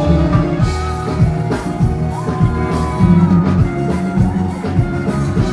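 Live stage music for a pop performance: a band or backing track with heavy bass and a steady drum beat.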